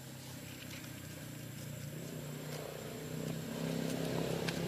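A motorcycle engine running steadily, growing louder over the second half, with a few faint clicks.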